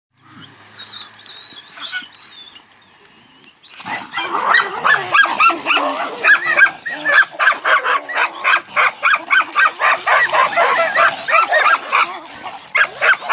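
Dogs barking and snarling in rapid, overlapping bursts, as in a dog fight. The barking starts suddenly about four seconds in after a quieter stretch of faint high calls.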